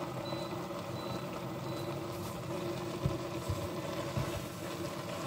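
A spoon stirring leafy vegetables in a stainless steel pot, with a few soft knocks against the pot about three to four seconds in, over a steady mechanical hum.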